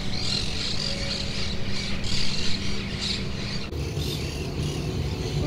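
Birds chirping and squawking in the background over a low rumble, with a brief break in the sound a little past halfway.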